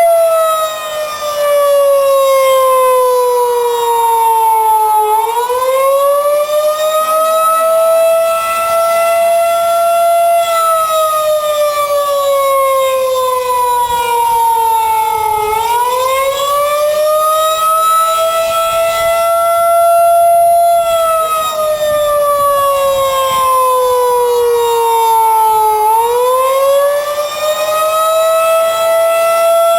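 Outdoor tornado warning (civil defense) siren sounding during its monthly test. Its pitch slides slowly down over about five seconds and climbs back up, about three times.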